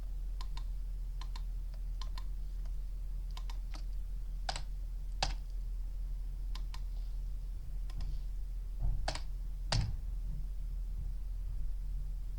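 Scattered, irregular clicks of a computer mouse and keyboard, some in quick pairs and a few louder than the rest, over a steady low electrical hum.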